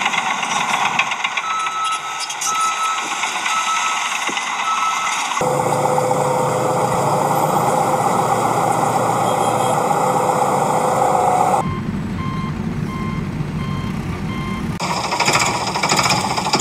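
Truck reversing alarm beeping at an even pace over a running truck engine, in two spells of about four beeps each. The engine sound changes abruptly a few times, as one clip cuts to the next.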